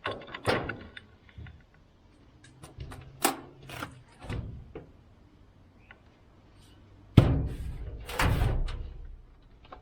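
Knocks and clunks of a heavy angle bracket being shifted and fitted into place in the back of a Nissan Patrol, a string of separate hits with the loudest clunk and rattle about seven seconds in.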